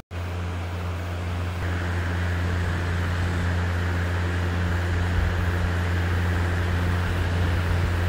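A steady low mechanical hum with a rushing hiss over it, from a running motor or engine; the hiss grows a little louder about a second and a half in.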